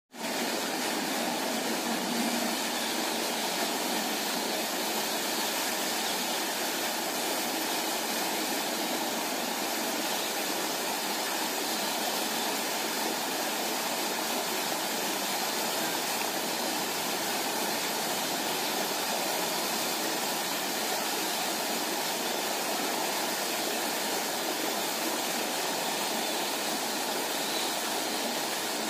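Lake fountain spray falling back onto the water: a steady, even rushing splash.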